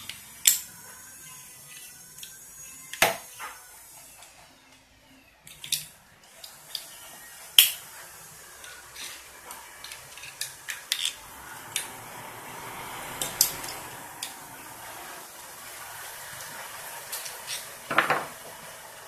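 Scattered sharp metal clinks and knocks as a mountain-bike coil-spring rear shock without a damper is taken apart by hand, its parts tapping against each other.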